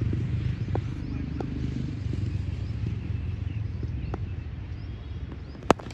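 Steady low outdoor rumble with a few faint clicks, and one sharp, loud crack near the end.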